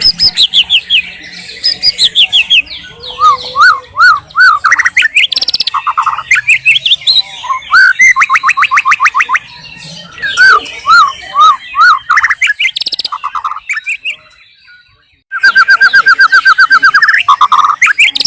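White-rumped shama singing a loud, varied song of whistled phrases, repeated notes and fast trills. About fourteen seconds in it pauses briefly, then starts again with a rapid run of evenly spaced notes.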